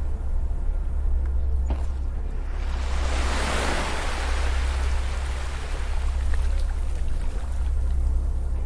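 A beach wave washing onto the shore: a hiss of surf swells about three seconds in and slowly fades away, over soft, low background music.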